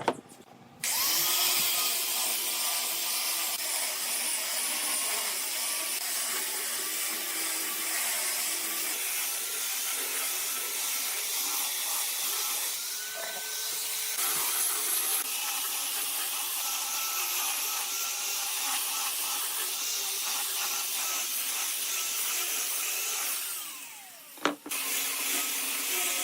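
Angle grinder with a sanding disc running on wood: a steady motor whine over gritty sanding noise, starting about a second in. Near the end the whine falls in pitch as the tool winds down, then a click and it runs again.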